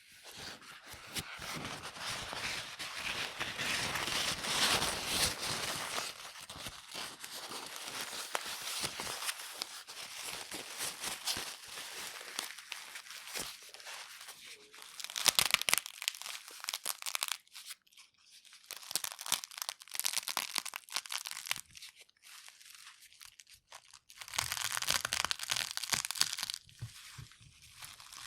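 Eggshell pieces wrapped in a paper towel being crushed by hand: dense crackling and crunching of shell with the crinkle of the paper, coming in long stretches with a sharper burst of cracks about halfway through and short pauses between.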